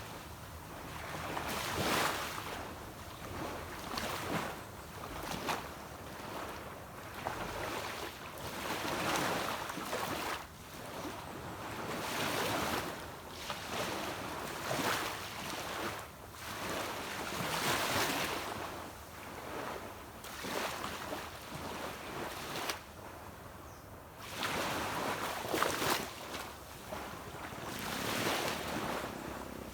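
Small sea waves breaking and washing up a beach, each wash swelling and fading every two to three seconds.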